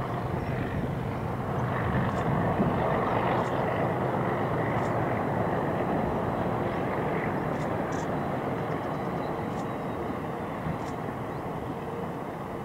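ALCO DL 537 diesel locomotive running with its train, a steady mechanical rumble that slowly fades toward the end.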